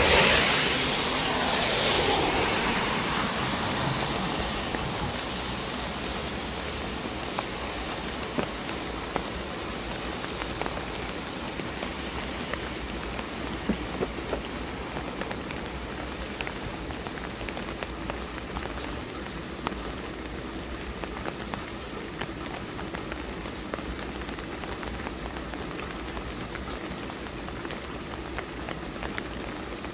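Steady light rain hissing, with scattered drops ticking close by. A louder rush of noise in the first couple of seconds fades away.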